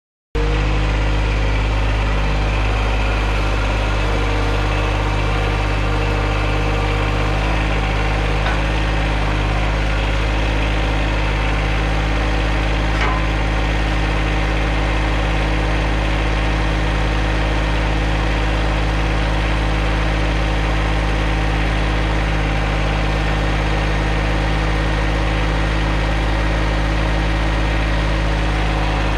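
John Deere 2210 compact tractor's three-cylinder diesel engine running steadily at a constant speed, with no revving or change in pitch.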